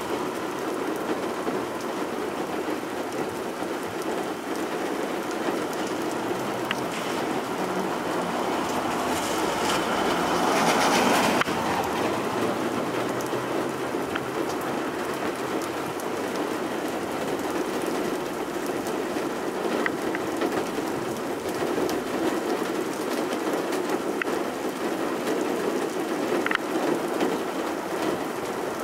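Heavy downpour of rain, a steady rushing hiss of rain falling on surfaces. It swells louder about nine to eleven seconds in, then drops back suddenly.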